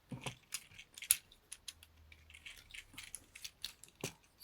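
Plastic parts of a Shattered Glass Optimus Prime Transformers figure clicking and knocking as it is handled and transformed into truck mode, with panels and tabs pushed into place. Many short clicks, the sharpest about a second in and near the end.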